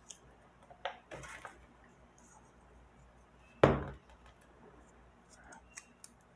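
Small pieces of corrugated cardboard handled on a tabletop: faint rustling and light clicks, a brief scrape about a second in, and one sharp thump at about three and a half seconds.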